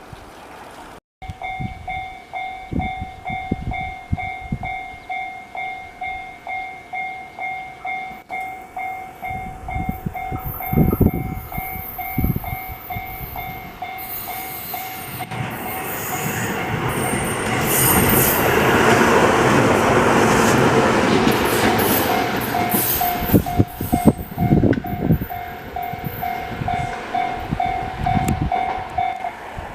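A Japanese level-crossing alarm rings a steady electronic ding about twice a second, starting about a second in. An electric train passes the crossing, its rumble and clacking wheels growing loud enough in the middle to drown out the alarm. The alarm dings on after the train and stops shortly before the end.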